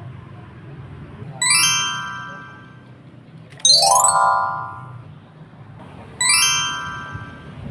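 Three bright chime sound effects about two and a half seconds apart, each starting with a quick upward slide and ringing out; the middle one slides up from lower and is the loudest. A steady low hum runs underneath.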